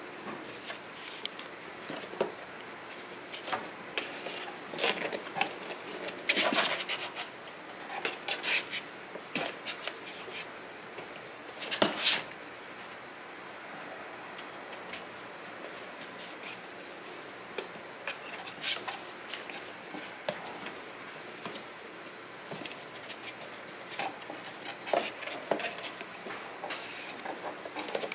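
Kittens' paws and claws scrabbling and knocking on a cardboard box and the crate floor: irregular scratches and light thumps, with a few louder knocks, the loudest about halfway through.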